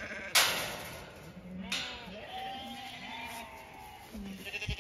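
Alpacas humming: a string of short, low, nasal calls, some wavering higher. A sharp knock about a third of a second in is the loudest sound.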